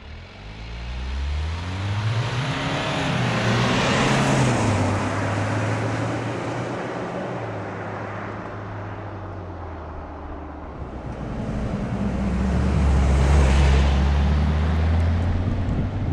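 Jeep Wrangler's 2.2-litre turbo-diesel four-cylinder under full throttle, revs climbing and dropping back at each automatic upshift as it drives past, loudest about four seconds in. It fades, then builds again to a second, louder pass near the end.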